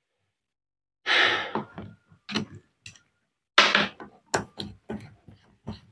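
Handling noises from the opened demolition breaker being worked on by hand at the bench: two brief scrapes, each followed by a run of sharp metal clicks and taps.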